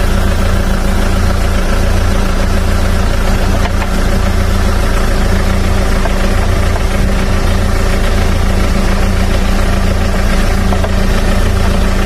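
Hyundai Porter truck's engine idling steadily with a constant hum, its air conditioning switched on while the system is charged with R-134a refrigerant.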